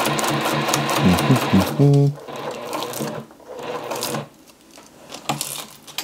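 Juki TL-18QVP single-needle lockstitch machine stitching a straight seam through a patch and Velcro, running steadily and stopping about two seconds in. After that come light clicks and handling noises as the work is adjusted.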